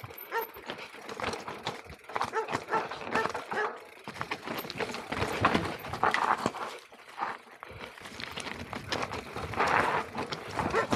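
Mountain bike rattling down a rocky trail, its tyres crunching over loose stones and the frame and chain clattering in quick knocks, with a dog barking in between.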